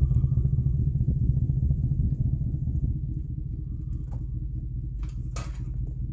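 A steady low rumble that flutters rapidly, with a few short faint clicks or rustles about four and five seconds in.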